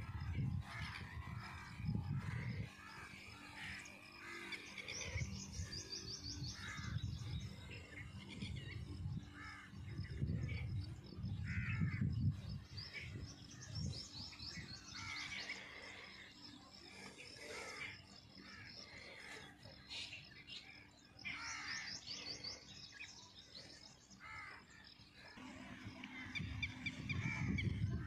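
Birds chirping and calling in open farmland, with many short chirps and a few quick trills. Low gusts of wind noise come and go.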